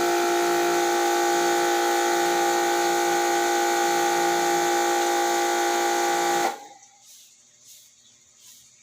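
Electric pressure washer running with a steady whine and the hiss of its water spray as the aircon filter is washed; it cuts off suddenly about six and a half seconds in.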